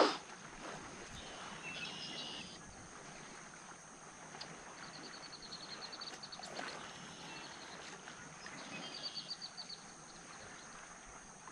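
Faint open-water ambience: a light, even hiss of breeze and small waves, with three short runs of rapid high ticking or chirping.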